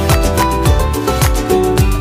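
Background music with a steady beat: upbeat instrumental track with plucked guitar-like notes and a punchy bass drum.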